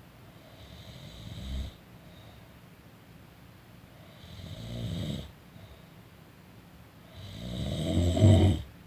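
A sleeping person snoring: three snores about three seconds apart, each building in loudness and then cutting off sharply, the last the loudest.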